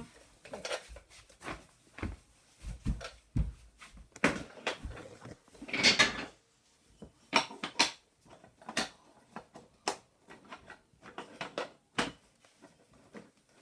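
Toy train set track pieces being handled and set down, a string of irregular clacks and knocks.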